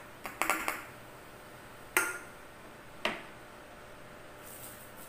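A quick cluster of small knocks, then two sharp clinks about a second apart, the first ringing briefly: a drink can and a glass jar mug of juice being handled and set down on a tabletop.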